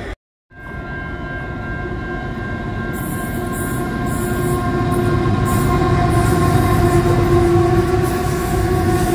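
Diesel-hauled freight train passing close by: the locomotive's engine and the wagons rolling on the rails, with several steady tones over the rumble, growing gradually louder. A split second of silence at an edit cut opens it.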